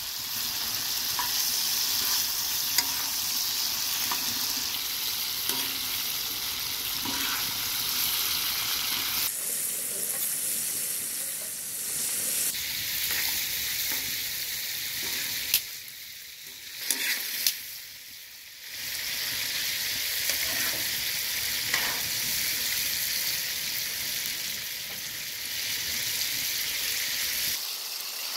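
Food frying in hot oil in a pan, sizzling steadily, with scattered clicks and knocks of a utensil against the pan. The sizzle drops away for a few seconds in the middle, where only a few knocks are heard, then returns.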